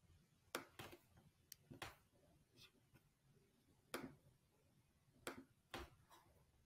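Computer mouse clicking: about seven faint, sharp clicks at uneven intervals, some in quick pairs.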